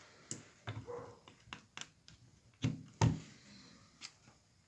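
Scattered light clicks and taps of multimeter test probes and leads being handled and set against a circuit board, with no continuity beep.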